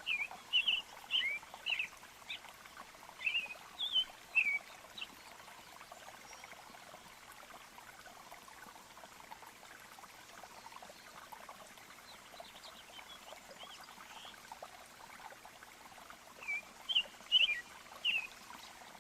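Birds chirping in quick runs of short high calls, one cluster in the first few seconds and another near the end, over the steady sound of running stream water.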